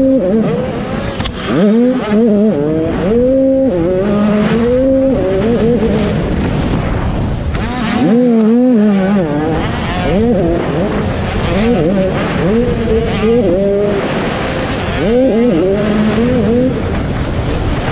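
Dirt bike engine recorded on board while racing, revving up and down over and over as the rider opens and closes the throttle and shifts through the turns and jumps. The engine note drops away briefly twice, about a second and a half in and again about eight seconds in.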